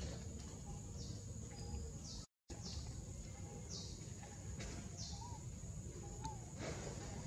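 Outdoor ambience: short falling bird chirps repeating roughly once a second over a steady high insect whine and a low background rumble. The sound cuts out completely for a moment a little over two seconds in.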